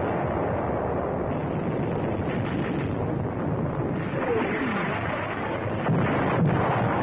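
Battle sound of artillery and gunfire: a dense, continuous rumble of firing. A falling whistle comes about four seconds in, and sharper reports follow near the end.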